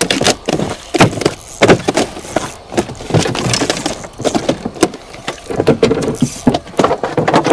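Irregular sharp clicks and knocks from a spinning reel being cranked and a rod being worked while a hooked fish is reeled in.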